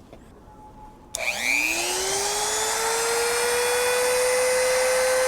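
Dremel rotary tool switched on about a second in, its motor whine rising in pitch as it spins up and then running steady at full speed, ready to cut the marked opening in the plastic rear bumper.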